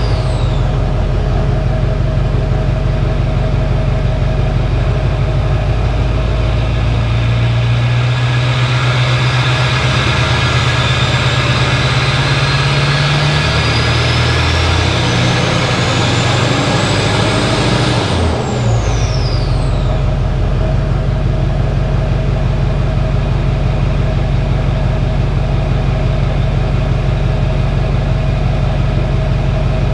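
2006 Chevy Duramax 6.6 L V8 turbodiesel with a straight-pipe exhaust running above idle, its turbo whistle climbing slowly in pitch for about fifteen seconds. Near two-thirds of the way through, the whistle sweeps quickly down as the turbo spools down, and the engine settles to a steady idle.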